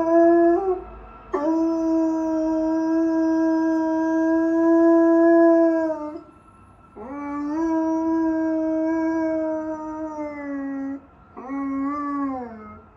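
A dog howling in long, steady held notes: the tail of one howl, then two long howls of about four to five seconds each, and a shorter last one that falls in pitch at its end.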